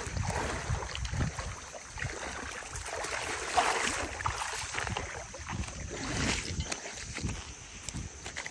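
Footsteps wading through shallow seawater, the water splashing and sloshing with each step, with wind rumbling on the microphone. The splashing thins out near the end as the walkers step out onto sand.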